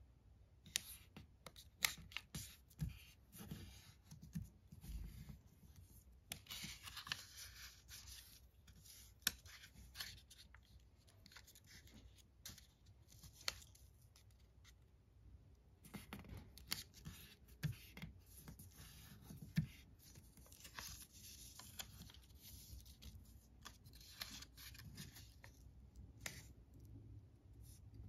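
A small square of origami paper being folded and creased by hand: quiet rustling and sliding of paper with scattered light taps and crinkles as the folds are pressed down.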